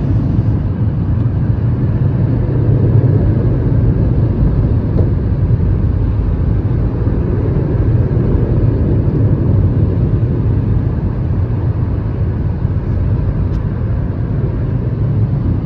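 Automatic car wash machinery running, heard from inside the car: a steady, loud, low rumble.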